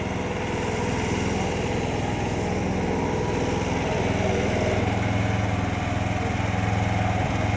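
An engine running steadily at a constant speed, with a hiss laid over it from about half a second to two and a half seconds in.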